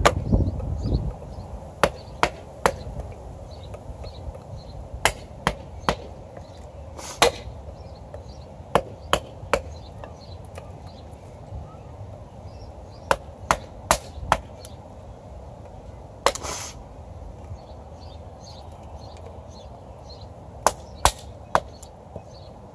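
Fixed-blade knife (American Knife Company Forest) striking into and splitting wood: sharp wooden knocks, often in quick runs of three or four about half a second apart, with pauses between runs.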